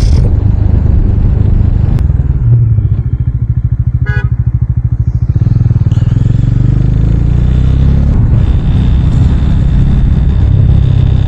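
Bajaj Dominar 400 motorcycle engine running while riding a winding mountain road, heard from the rider's seat with wind rumble. The engine eases off and pulses for a few seconds, then pulls again. A short horn beep sounds about four seconds in.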